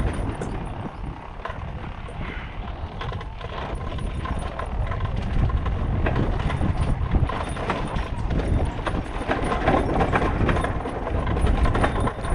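Motorcycle running along a rough, stony dirt track, with frequent knocks and rattles as it goes over the bumps.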